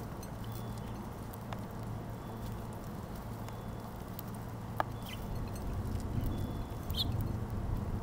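Steady low outdoor rumble, with a few sharp clicks of a house finch pecking seed on a plastic hopper feeder, and two short, high bird chirps about five and seven seconds in.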